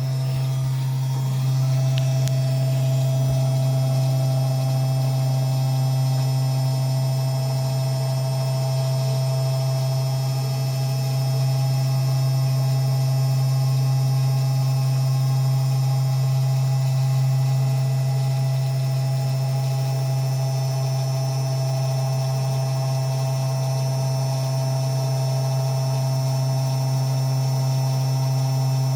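Small desktop CNC engraver running at a slow feed, its spindle and stepper motors giving a steady low hum with a thin whine above it. It is cutting a shallow V-groove engraving.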